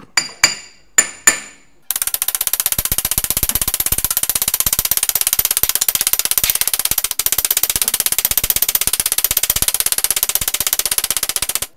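Mallet striking a steel driver tube to seat a rear wheel bearing in a VW bus trailing arm housing. A few separate ringing metallic strikes come first, then about two seconds in a rapid, even run of taps that stops just before the end.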